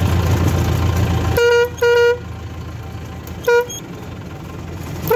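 A tractor engine runs with a low, steady rumble, then three short horn honks sound close by: two about a second and a half in and one about three and a half seconds in. The rumble drops away sharply at the first honk.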